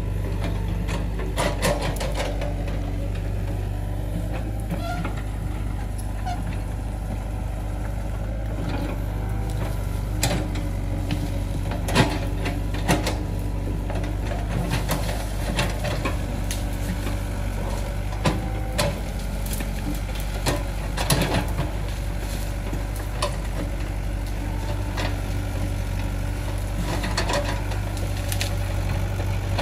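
Excavator engine running steadily, with irregular sharp clanks and knocks from the machine working.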